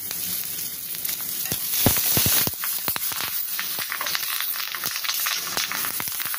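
Spices, dried red chillies and curry leaves sizzling in hot ghee in a small pan for a tadka, stirred so that the spoon clicks and knocks against the pan. The clicks are thickest and the sizzle loudest about two seconds in.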